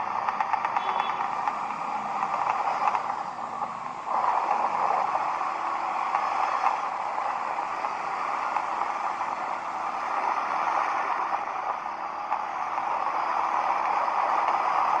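ATV engine running under way, easing off briefly about three to four seconds in and then picking back up.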